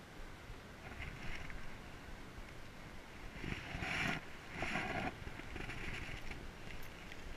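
Footsteps scuffing over rock and dry leaves, with a short rustle about a second in and two louder rustling bursts near the middle.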